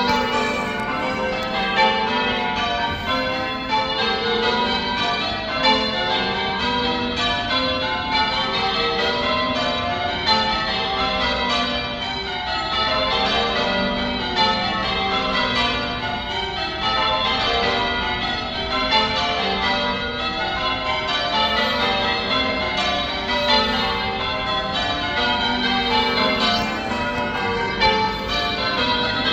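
A ring of church tower bells being rung in changes: bell after bell struck in an even, unbroken stream, the tones overlapping as the order of the bells shifts.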